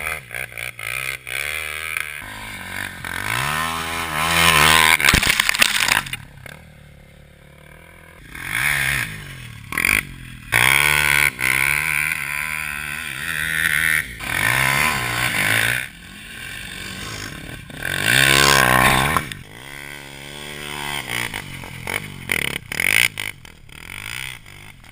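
Polaris Outlaw 450 MXR quad's KTM 450 single-cylinder four-stroke engine through a Motoworks SR4 slip-on exhaust, revved hard and backed off again and again as it is ridden, the pitch rising and falling with the throttle. It drops to quieter lulls a few times, the longest about six seconds in.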